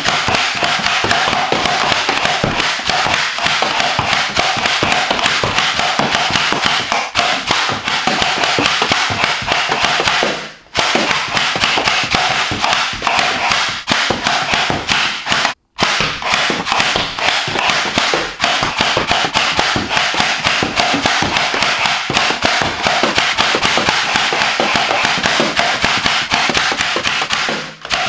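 Nerf Demolisher rocket launcher being loaded, primed and fired over and over: a dense, unbroken run of plastic clacks and sharp knocks from foam rockets shoved into the barrel, shots and hits, with two brief breaks partway through.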